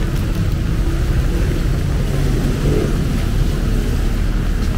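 Diesel engine of a large roadside construction machine running steadily, a low drone, with a fainter hiss of rain and wet street traffic behind it.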